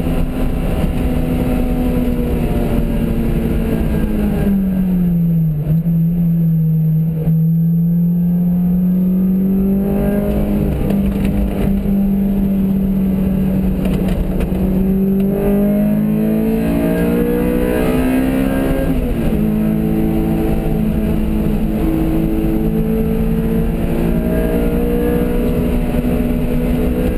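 Car engine heard from inside the cabin at speed on a track, over steady road rumble. Its note falls about five seconds in, climbs slowly for over ten seconds, drops sharply at a gear change about nineteen seconds in, then climbs again.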